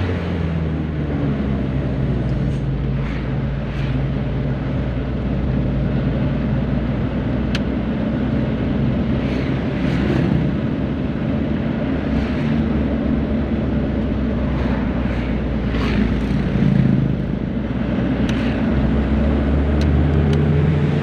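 Isuzu Elf minibus's diesel engine running steadily under way, a continuous low drone with little change in pitch.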